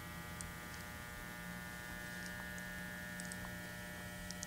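Steady electrical hum with many overtones and a constant pitch, with a few faint light ticks.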